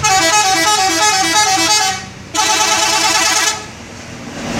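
A bus's telolet horn, a multi-tone musical air horn, plays a quick tune of stepping notes twice. The first run lasts about two seconds, and after a brief break a second, shorter run follows.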